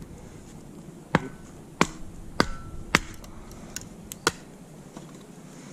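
Dry kindling sticks snapping: about seven sharp, separate cracks spread over roughly three seconds, a few close together near the end.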